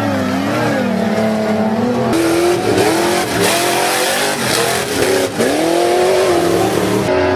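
Off-road race trucks' engines revving hard through a dirt turn, their pitch swinging up and down over and over. The sound changes abruptly about two seconds in and again near the end.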